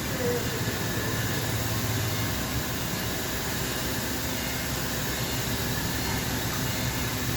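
2018 Ford F-150 V8 engine running at idle, a steady rumble with hiss. The truck has a misfire when cold starting.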